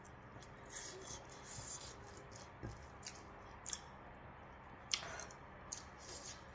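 Quiet eating sounds from someone eating by hand: fingers squishing and mixing food in a bowl, with short wet clicks, the sharpest about five seconds in.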